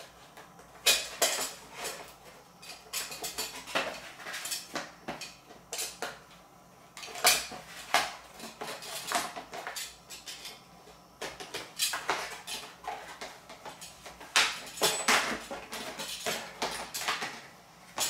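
Utility knife cutting through a thin sheet of board: short scraping strokes of the blade with sharp clicks and taps as the sheet is handled, coming irregularly.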